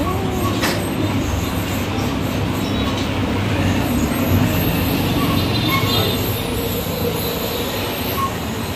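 Steady rumble and road noise of a moving vehicle, heard from on board, with a brief click about half a second in and a few faint high squeals.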